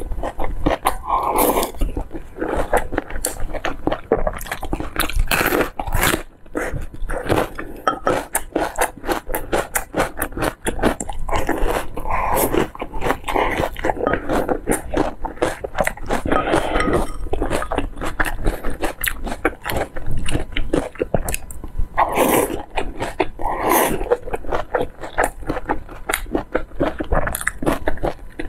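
Close-miked biting and chewing of large steamed meat dumplings, with a steady run of small mouth clicks and smacks and a few louder mouth sounds.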